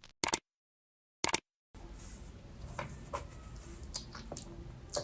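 Two sharp clicks about a second apart in dead silence, then faint close-up room noise with scattered soft clicks and ticks.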